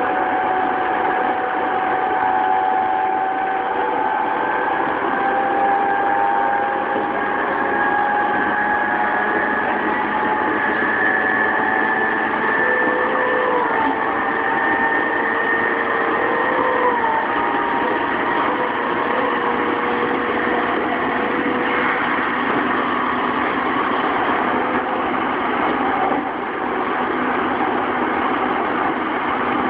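Running noise inside a JR East E233 series 3000 motor car at speed: a steady rumble of wheels on rail with the faint whine of the traction motors and Hitachi IGBT VVVF inverter, its tones drifting slowly in pitch.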